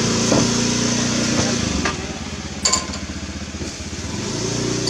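A small engine running steadily, fading about two seconds in and swelling again near the end. A single sharp click with a brief ring comes a little past halfway.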